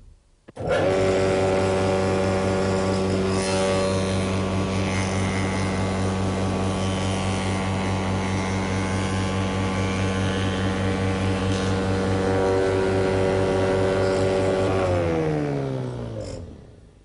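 Spindle moulder (wood shaper) running with a steady hum from its motor and spinning cutter block while a straight length of timber is machined along the fence. It comes in abruptly just under a second in. About fifteen seconds in the pitch slides down and the sound fades as the machine is switched off and runs down.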